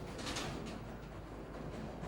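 Bowling ball rolling down a lane: a steady rumble, with a brief hissing swell about a quarter second in.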